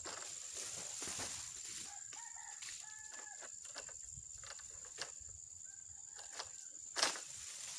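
A rooster crowing faintly about two to three seconds in, over a steady high whine, with scattered light rustles and a sharp knock near the end.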